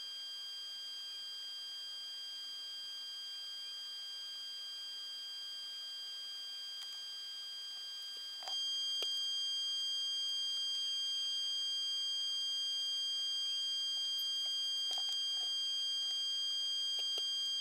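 A steady, high-pitched electronic whine made of several constant tones, which gets louder about halfway through, with a few faint clicks.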